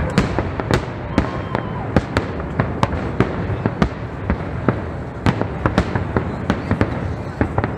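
Fireworks display: an irregular string of sharp bangs from aerial shells bursting, several a second, over a continuous dense crackle from the glittering stars.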